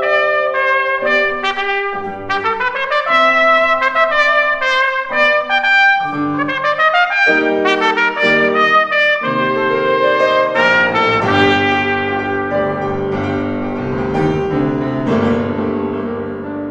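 Trumpet playing a quick line of separate notes over grand piano accompaniment; near the end the trumpet drops out and the piano carries on alone.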